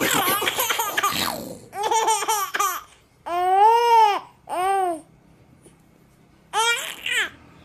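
Baby laughing and cooing in short high-pitched bursts: a run of giggles, then a long coo that rises and falls, a shorter one after it, a pause, and one more brief laugh near the end.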